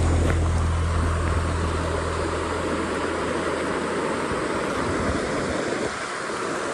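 Mountain river water rushing, a steady even noise. A low steady hum underneath fades away about four seconds in.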